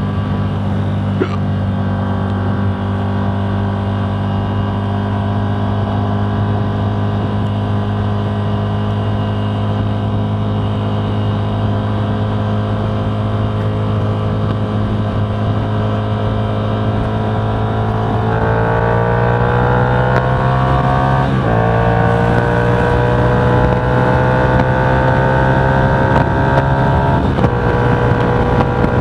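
Vehicle engine running at a steady cruise. About 18 seconds in the revs jump up and climb under acceleration, dropping twice at gear changes.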